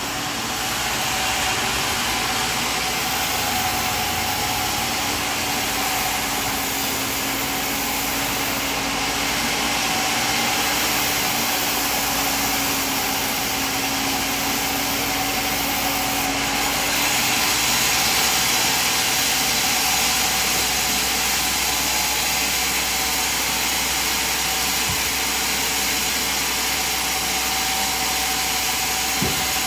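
Sawmill machinery running: a steady mechanical drone with a constant hum, turning hissier for a couple of seconds a little past the middle.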